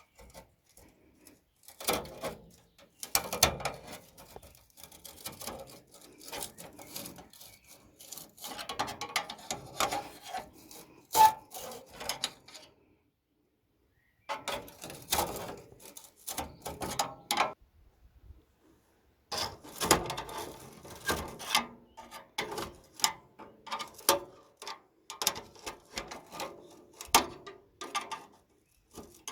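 Hand-tool work on a pickup's exhaust: irregular scraping, rubbing and clicking in bursts, broken by short pauses.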